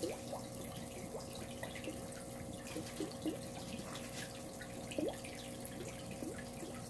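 Water trickling and dripping in a small fish pond, with scattered small plops, over a faint steady hum.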